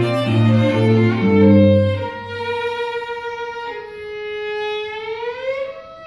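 String quartet playing a bowed passage. The low cello notes stop about two seconds in, leaving the upper strings holding long notes, and one of them slides up in pitch near the end.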